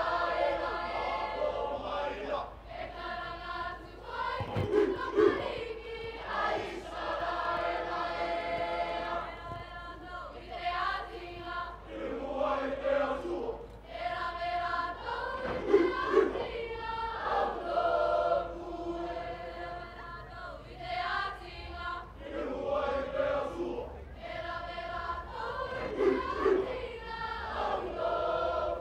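Cook Islands group's mixed choir of young male and female voices singing together in parts, with louder accented moments about every ten seconds.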